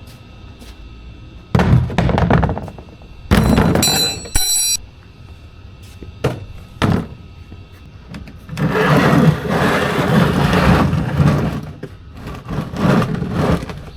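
Heavy metal clunks, knocks and clatter of panels and parts being handled on a Kubota SVL75-2 skid steer, with a brief ringing metallic scrape about four seconds in and a longer stretch of rattling clatter after the middle.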